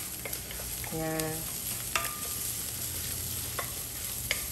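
Garlic, ginger and chili flakes sizzling in a hot stainless steel wok while a wooden spatula stirs and scrapes them, with a few sharp taps of the spatula against the pan, one ringing briefly.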